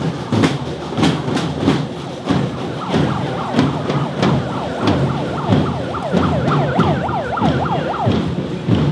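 Steady drum beats about twice a second. From about five seconds in, a siren joins with a fast up-and-down yelp, then stops about a second before the end.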